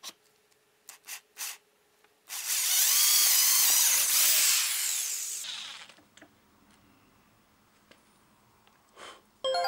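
Power drill with a 6 mm metalworking twist bit boring through a softwood block inside a steel drill-guide bushing. After a few light clicks, the drill runs for about three seconds, then winds down.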